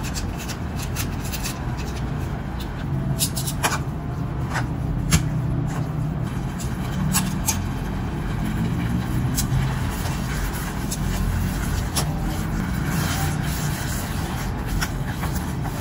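Construction noise: a steady low rumble throughout, with scattered sharp clicks and taps of metal tongs and chopsticks against the electric cooking pot as instant noodles are mixed.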